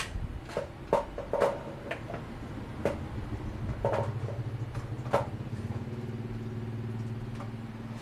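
A handful of short knocks and clicks over a steady low hum; the knocks stop about five seconds in and the hum carries on.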